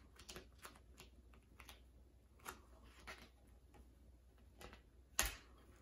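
Faint, scattered small clicks and crackles of a vinyl decal skin being pressed and smoothed by hand onto the plastic lid of a Roomba i7+ robot vacuum, with one sharper tap a little after five seconds in.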